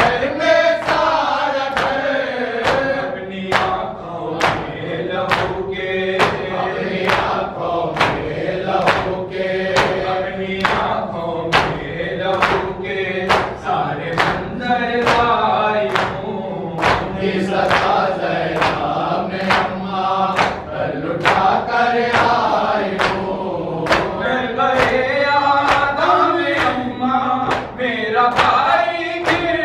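A group of Shia mourners chanting a noha lament in unison while beating their chests in matam. The hand strikes land as a steady beat of about one and a half a second under the voices.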